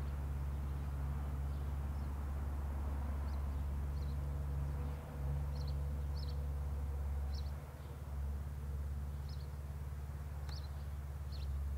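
Small birds giving short high chirps, about a dozen scattered through, over a steady low rumble.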